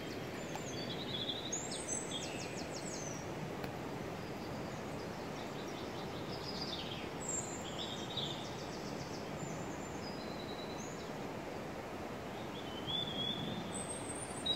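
Steady noise of flowing river water, with small birds calling repeatedly above it in short chirps and quick trills.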